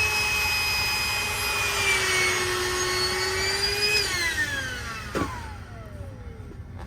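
Small electric air pump running with a steady whine, inflating an air mattress; it is switched off about four seconds in and its whine falls in pitch as the motor winds down, with a click about five seconds in.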